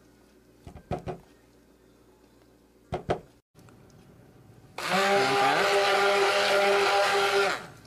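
Handheld stick blender running in a bowl of milk and oatmeal, switched on about five seconds in, with a steady hum and whir, and switched off near the end. A few light knocks come before it.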